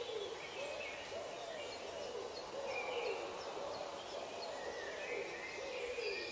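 Wild bird chorus: a steady series of low hooting calls, one after another, under higher bird whistles and chirps.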